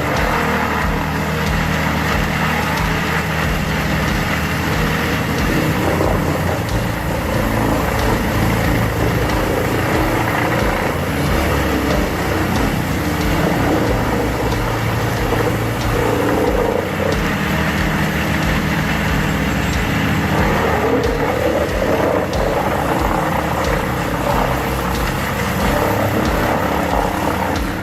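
Vermeer WC2500XL biomass chipper at work: its large engine runs loud and steady under load, with a continuous dense mechanical noise that swells briefly now and then.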